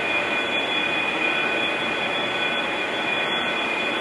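Room air conditioner running: a steady whooshing hiss with two thin, high, steady whines over it.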